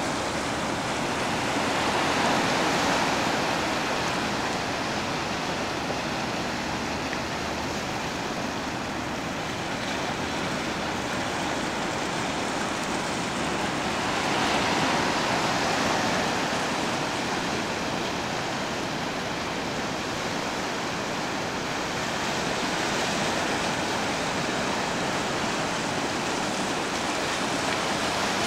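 Ocean surf washing in over a shallow rocky tide flat: a continuous rushing of moving water that swells louder every several seconds as waves come in.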